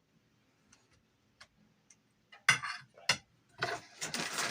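Small clicks and handling noises from food and tableware being moved on a table: a few faint ticks, two sharp knocks about two and a half seconds in, then a crinkly rustling near the end.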